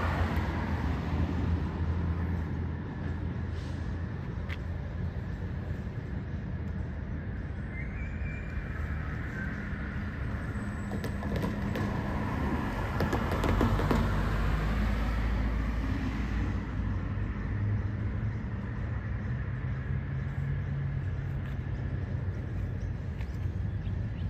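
Low, steady drone of distant diesel locomotives approaching along the line, their engine note shifting a little. A deeper rumble swells briefly about halfway through.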